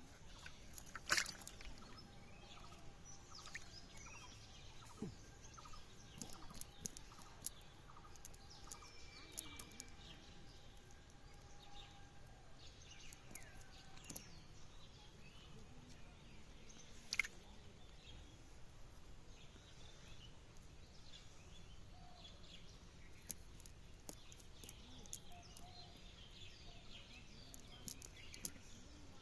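Quiet outdoor background hiss with scattered sharp clicks, the loudest about a second in and again near the middle.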